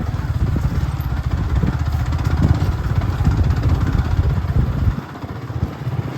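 Motorcycle engine running steadily, with a dense, even pulsing; it fades markedly about five seconds in.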